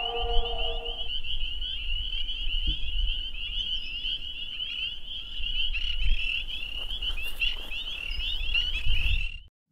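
A dense chorus of frogs, rapid high repeated calls running together without a break, over a low rumble; it cuts off abruptly near the end.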